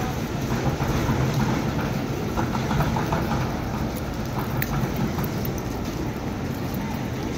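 Rainy city-street ambience: a steady low rumble of traffic and trams with the hiss of rain on wet pavement.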